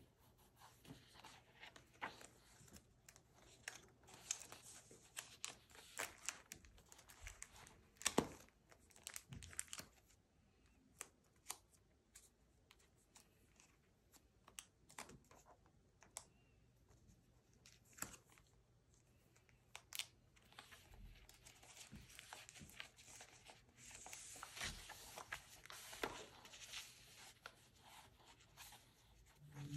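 Label stickers being peeled off their backing sheet and pressed onto a paper diary page, with sticker sheets and plastic sleeves rustling and scattered light taps and clicks; the rustling gets denser near the end.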